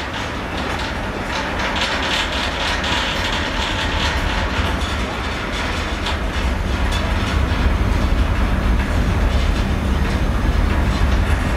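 Steady low rumble with a rushing noise on board a car ferry: wind on the microphone over the ship's machinery and the sea.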